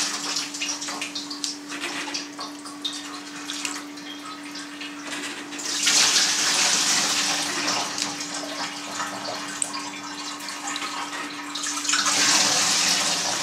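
Whey scooped from a vat of cheese curds and poured into a pot with a plastic scoop, splashing and trickling. There are two louder pours, one about six seconds in and one near the end, over a steady low hum.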